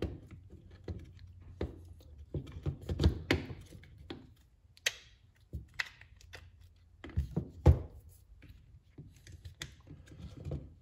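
Parts of a cordless impact driver being handled: irregular clicks, knocks and short scrapes of plastic and metal as the motor, gearbox and hammer assembly is worked loose from the opened plastic housing, with a few sharper knocks, the loudest about three and seven and a half seconds in.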